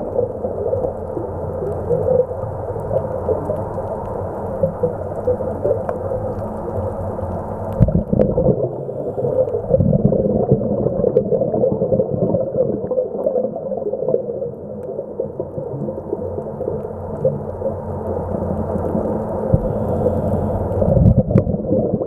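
Muffled underwater ambience picked up through a camera's waterproof housing: a steady low rumble with grainy crackling and a few faint clicks, swelling louder a few times.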